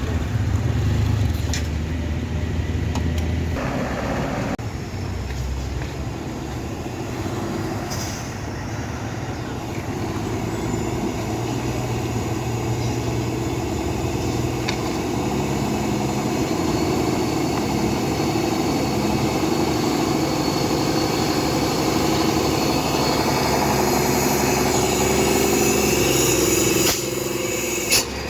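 Heavy vehicle engines running on the road, a steady drone whose pitch shifts as traffic labours past, with a sharp click near the end.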